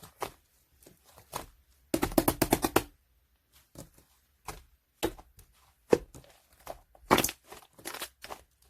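Slime being squeezed and poked by hand: scattered sticky pops and clicks, with a quick run of crackling pops about two seconds in.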